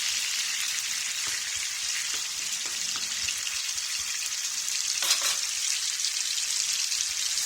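Chicken pieces, tomato, garlic, peppers and peas sizzling steadily as they fry in hot oil in a shallow pan for a sofrito. There is a brief knock about five seconds in.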